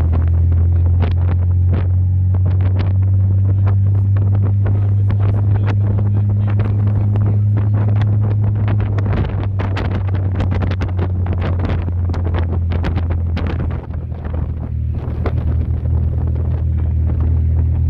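The 1938 SS Jaguar 3½ Litre's straight-six engine running at a steady low hum, with wind buffeting and crackling on the microphone.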